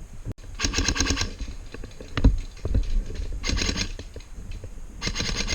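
Airsoft guns firing on full auto in three short bursts of rapid, evenly spaced clicks: about half a second in, around three and a half seconds in, and again near the end. A single low thump comes between the first and second bursts.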